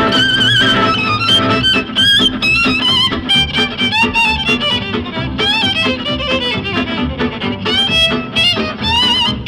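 Background music: an upbeat fiddle tune over a steady bass and rhythm accompaniment.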